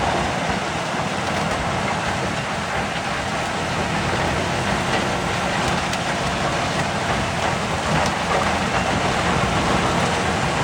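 Large wood chipper, rated at about 800 horsepower, running steadily as it works, with a few faint sharp cracks through the steady din.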